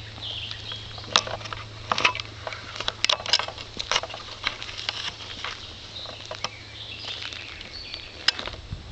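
Footsteps on a paved road and knocks from a handheld camera while walking, irregular sharp clicks about once a second, over a steady low hum with faint high chirps.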